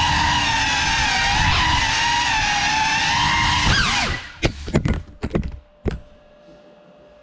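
Ducted cinewhoop quadcopter's brushless motors and 3.5-inch props whining steadily, the pitch wobbling with throttle. About four seconds in the whine drops away and several sharp knocks follow as the drone hits something and tumbles to a stop, leaving only a faint steady hum.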